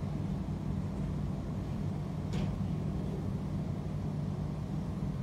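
Steady low electric hum and air noise from running room fans and an air conditioner. One faint, brief rustle comes a little after two seconds in.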